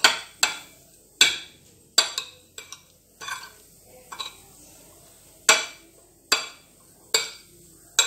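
A metal spoon clinking against a ceramic bowl while tossing boiled green beans, with about a dozen sharp, ringing knocks at an uneven pace of roughly one a second.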